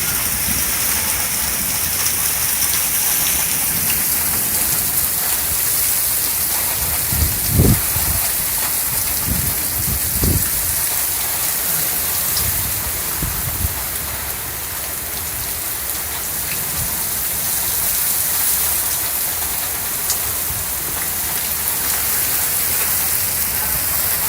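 Heavy rain pouring steadily in a thunderstorm, with a few short low rumbles about a third of the way in.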